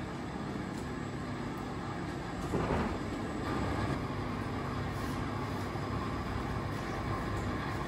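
A steady low hum and rumble, with a brief louder swell about two and a half seconds in.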